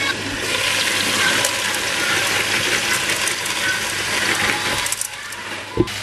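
Frying pan of porcini mushrooms in hot oil sizzling loudly once the lid is lifted and frozen peas are poured in; the sizzle drops about five seconds in, and a single knock follows near the end.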